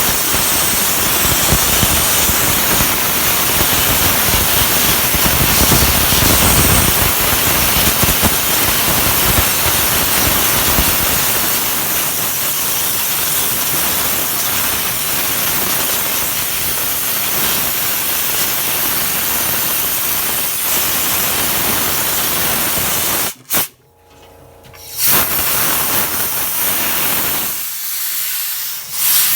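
A steady, loud hissing spray that cuts off suddenly about 23 seconds in, then comes back in two short bursts near the end.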